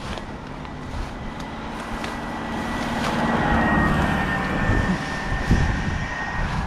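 A motor vehicle passing by: a steady engine hum with a thin high whine that swells to a peak mid-way and eases off again, over wind noise.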